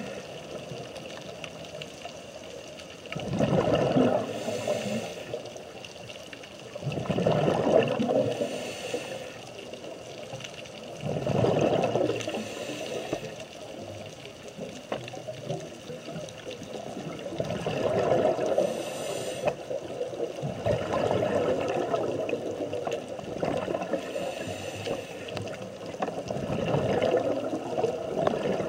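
Underwater sound of a scuba diver breathing through a regulator: a steady watery background broken about six times, every few seconds, by loud gurgling bursts of exhaled bubbles.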